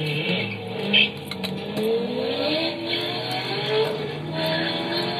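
Two Chevrolet Corvettes' V8 engines revving hard as they launch from a standstill. Their pitch climbs in steps as they shift up through the gears. There is a brief sharp sound about a second in.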